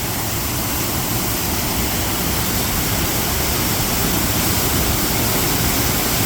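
A waterfall in full spate, swollen by a month's worth of rain in 24 hours: a steady, loud rush of falling water.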